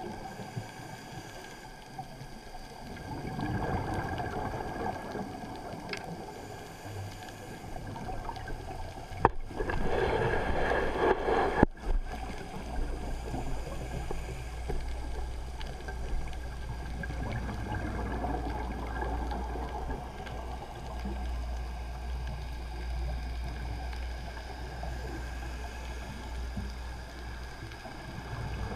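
A scuba diver's regulator breathing, heard muffled through an underwater camera housing: rushing swells of exhaled bubbles, the loudest about ten seconds in with two sharp clicks around it, then a steady low hum.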